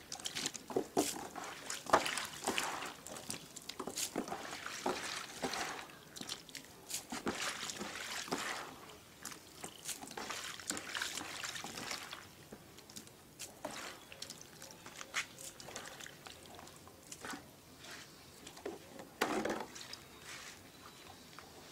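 Hands washing a mass of snails in a plastic basin of water: water sloshing and splashing, with the shells clicking and clattering against each other. It is busiest in the first half and quieter later on.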